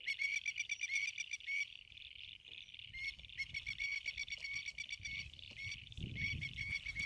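A chorus of frogs calling at a farm dam, a steady stream of rapid high chirping notes. A low rumble comes in about halfway through and grows toward the end.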